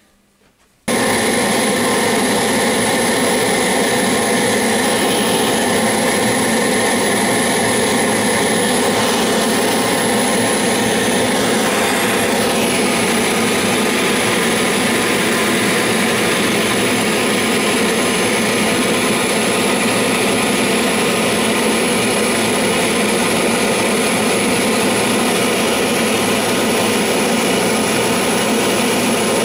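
Gas brazing torch roaring steadily, its flame heating a copper boiler joint for silver soldering. The roar comes on suddenly about a second in.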